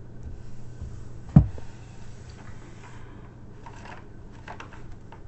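Hands handling a diamond painting canvas on a table: a single sharp thump about a second and a half in, then light crinkling and rustling of the canvas's plastic cover film and paper as it is turned over and smoothed.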